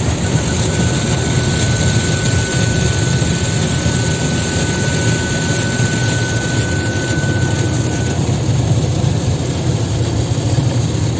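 Automatic car wash spraying water over the car, heard from inside the cabin as a steady rushing with a low rumble. A continuous high beep from the car's parking sensors starts about a second in and stops about eight seconds in, set off by the wash machinery close to the sensors.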